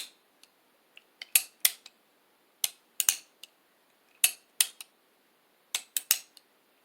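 Pietta 1858 New Model Army percussion revolver's action being worked by hand: sharp metallic clicks in short clusters of two or three, about every one and a half seconds, as the hammer is cocked and let down and the cylinder turns and locks. It is a functions check of the freshly reassembled revolver, and the action is working properly.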